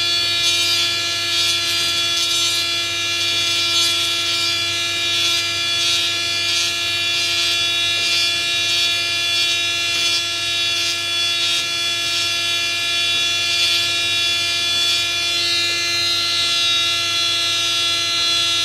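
Small handheld rotary drill running at a steady speed with a high whine, its burr grinding down a glued eMMC chip on a tablet's circuit board. A scratchy grinding noise rises and falls as the burr bites into the chip.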